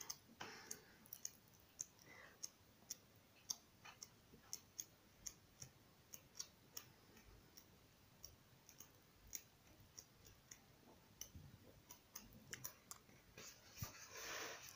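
Near silence with faint, regular ticking, about two ticks a second, and a soft rustle of colouring-book pages being turned near the end.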